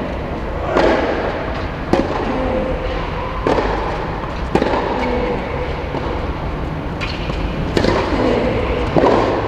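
Tennis rally: racquets hitting the ball about seven times, sharp pops one to two seconds apart, each echoing in the domed indoor hall, over a steady low rumble.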